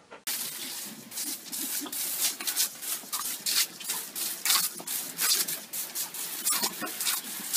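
Water jet from a garden hose spray nozzle hissing and splattering on wet paving, starting abruptly, with irregular sharp splashy snaps as a dog bites at the stream.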